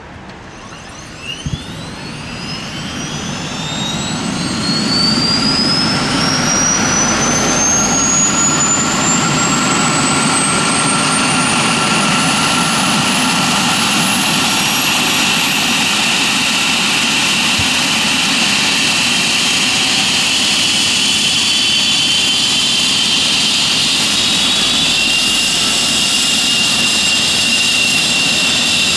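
Airbus EC135 helicopter's Turboméca Arrius 2B2 turboshaft engines starting up. A turbine whine rises steadily in pitch and volume over the first few seconds, then settles into a loud, steady running whine. Two sharp clicks come about a second and a half in.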